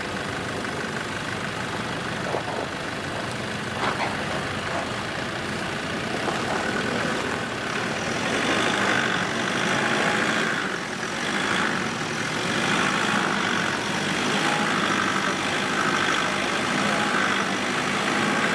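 Nissan Patrol 4WD's engine running at low revs as it crawls slowly through deep ruts, getting louder and working harder about halfway through.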